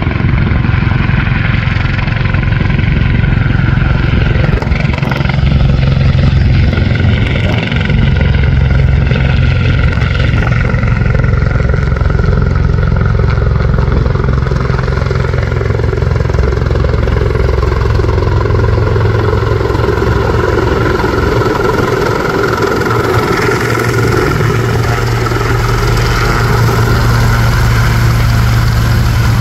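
Sikorsky S-76C+ twin-turbine helicopter descending on approach to land: the main rotor's loud, steady noise with the whine of its turbines.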